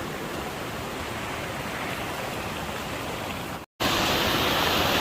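Waterfall rushing, a steady noise with no pitch. It cuts out for an instant about three-quarters of the way through, then comes back louder and brighter.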